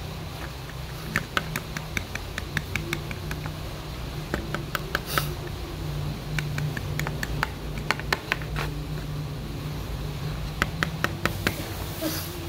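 Small toy motorcycle handled and rolled over wooden boards: irregular sharp plastic clicks and taps, several a second in clusters, over a steady low hum.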